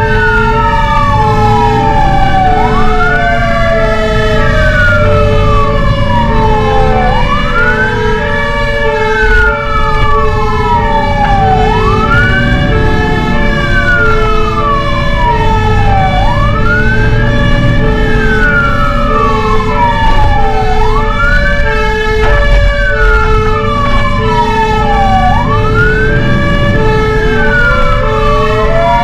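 Fire engine sirens on an emergency run: a wail that sweeps up quickly and falls slowly, repeating about every four and a half seconds, over a lower tone pulsing on and off about once a second, with the truck's engine rumbling beneath.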